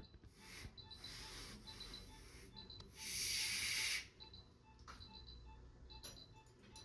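Several bursts of hissing air, the longest and loudest from about three to four seconds in. Short high beeps from a patient monitor repeat throughout.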